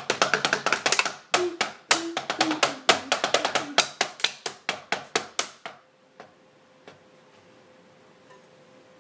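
Drumsticks beating a quick run of sharp taps, several a second, which stops about six seconds in.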